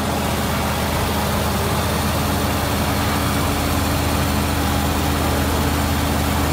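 Heavy diesel engine running at a steady low drone, with an even hum that does not change.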